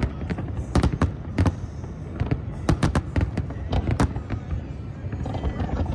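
Aerial fireworks display going off, with rapid, irregular bangs of shells bursting, several a second at times, and crackling building up near the end.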